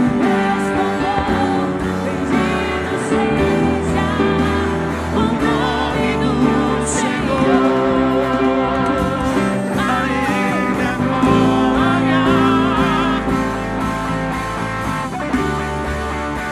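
Live worship music: singing over guitar and keyboard-like sustained chords, a slow devotional song.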